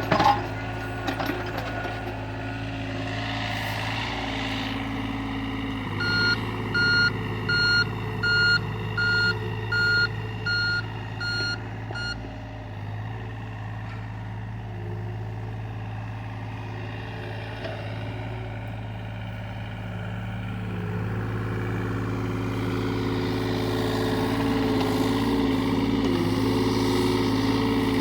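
John Deere excavator's diesel engine running steadily while its travel alarm sounds a row of about eight evenly spaced beeps, then stops. Over the last several seconds the engine grows louder as it comes under more load.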